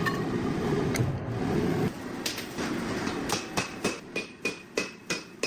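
Hand hammer striking the steel of a car spring on an anvil: a run of sharp metallic blows, about four a second, each with a brief high ring, starting a little past halfway. Before the blows there is a steady low rushing noise.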